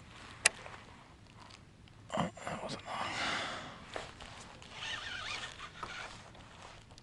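Fishing rod and reel handling noises as a fish takes the bait: a sharp click about half a second in, then scattered scrapes and rustles.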